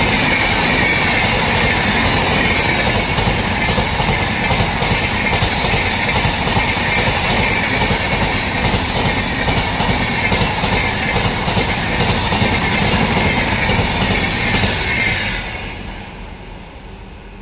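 LHB passenger coaches passing at high speed, steel wheels on rail making a steady loud din with rapid clicks over rail joints. The last coach goes by about fifteen seconds in, and the noise quickly fades away.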